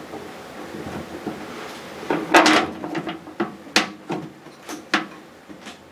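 Metal knocks and clinks of a spanner as a nut is done up on the bolt of a Morris Minor handbrake cable: a few separate sharp strikes, loudest about two seconds in.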